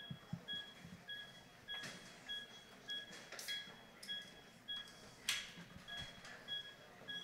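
CPR metronome of an emergency resuscitation device beeping a short two-tone pip about twice a second, pacing the chest compressions. A few short bursts of hiss break in, the loudest about five seconds in.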